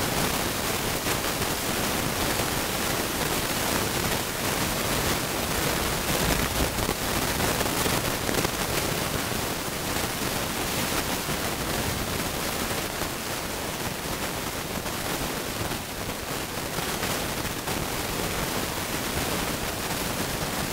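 Steady, even hiss that does not change.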